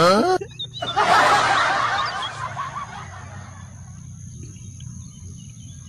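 A long slurping sip of milky coffee from a glass mug. It starts suddenly about a second in and fades out over about a second and a half.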